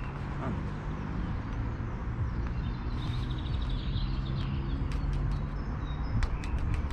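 A small bird chirps with a quick trill about halfway through, over a steady low hum. A run of sharp clicks comes near the end.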